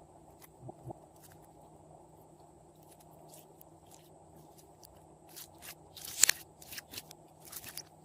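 Glossy slime being pressed and worked by hand, giving sparse sharp wet clicks and pops over a steady low hum. A few come about a second in, then a denser run in the second half, the loudest about six seconds in.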